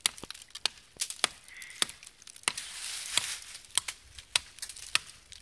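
A small axe chopping into a green sapling trunk, with sharp wood-splitting blows about three a second.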